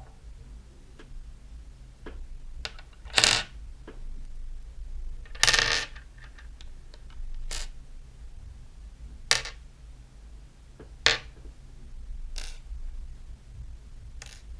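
Small metal lighter parts (screws, springs, a flint tube, caps) set down one by one on a wooden tabletop, partly with tweezers. About ten separate light clinks and taps a second or two apart, with a longer rattle about five and a half seconds in.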